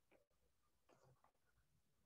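Near silence: room tone, with a few very faint ticks about a second in.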